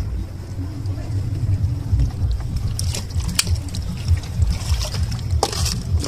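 Wind buffeting the microphone with an uneven low rumble, broken by a few short sharp clicks about three seconds in and again near the end.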